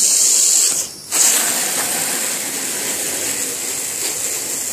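Garden hose spray hissing steadily as a jet of water washes leaves and debris across a pool-cage screen, with a brief dropout about a second in.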